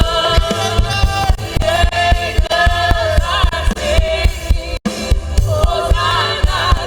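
Live gospel worship music: sung melody with backing voices over a band with drums and bass keeping a steady beat. The sound drops out for an instant about five seconds in.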